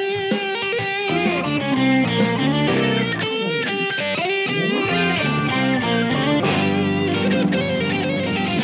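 Rock music led by electric guitar, playing as a short title jingle, with some sliding notes midway through.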